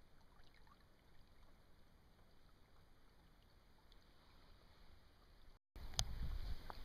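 Faint water sounds around a small inflatable boat drifting on a calm river, with a few soft ticks. Near the end it cuts to a louder stretch of paddling with a sharp knock.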